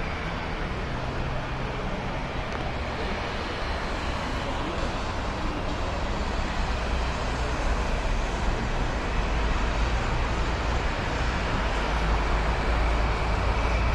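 Steady road-traffic noise from cars and vans on a busy multi-lane road, mixed with the low rumble of a jet airliner climbing away after takeoff, the rumble growing slightly louder in the second half.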